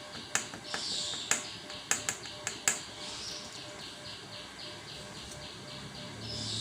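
About six sharp clicks and taps in the first three seconds, over a steady, fast chirping in the background that repeats about four times a second.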